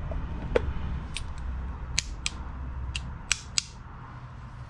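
Sharp plastic-and-metal clicks, about eight of them, as a black plastic distributor cap is handled and fitted onto an Accuspark electronic distributor. The two sharpest clicks come a little past three seconds in. A low hum runs underneath and drops away shortly after.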